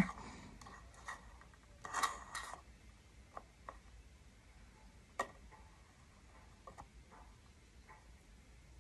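Quiet room with faint, irregular small clicks and taps, a brief rustle about two seconds in and a sharper click about five seconds in.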